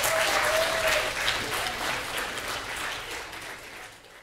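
Audience applauding at the end of a talk, fading away over the last second and then cut off.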